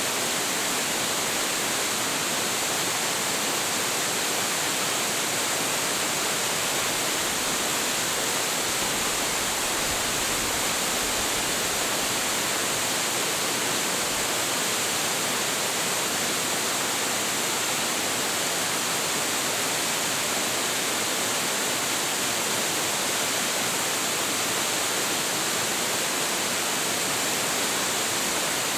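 Hiji Falls, a 25.7 m waterfall with plentiful flow, pouring steadily: an even, unbroken rush of falling water, strongest in its hiss.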